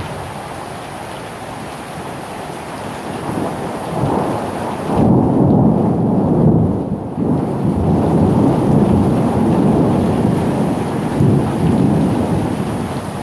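Thunderstorm: steady rain, with a long rolling rumble of thunder building about four seconds in and holding loud through the rest.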